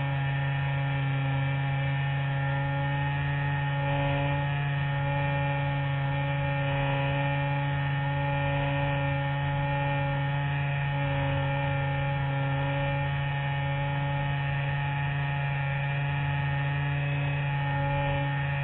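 Electric motor and propeller of a Spectra RC glider running at steady power with a constant humming pitch, heard from a camera mounted on the fuselage.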